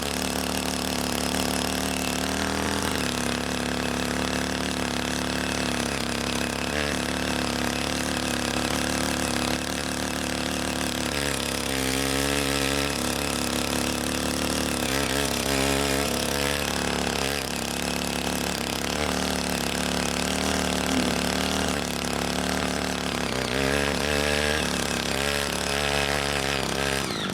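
Small engine of a CY80 walk-behind rotary tiller running steadily as it churns wet paddy soil, its speed wavering up and down several times as the tines meet the mud.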